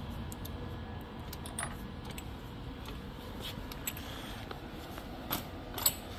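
A few scattered light clicks and clinks, like small hard parts being handled, the sharpest two near the end, over a low steady rumble.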